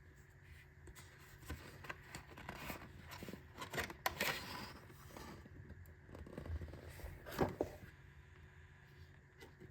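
Packaging being handled and opened by hand: scattered rustles, scrapes and light clicks, loudest about four seconds in and again a few seconds later.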